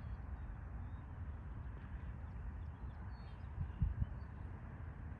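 Outdoor background with a low, fluttering rumble, faint bird chirps, and two dull thumps about four seconds in.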